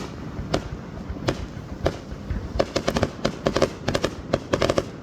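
Fireworks going off: a few single bangs spaced well apart, then from about halfway through, rapid clusters of many sharp bangs in quick succession.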